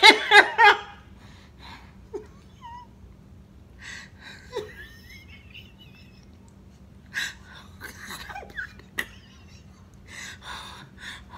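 A woman laughing hard in bursts, with breathy wheezes and a few short squeaky high sounds between them; the loudest burst comes right at the start.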